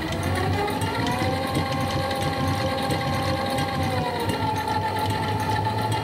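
12-volt, 240-watt electric winch motor and gearbox running in reverse under a speed controller: a steady mechanical whine that rises in pitch over the first second as the speed is turned up, holds, then drops slightly about four seconds in.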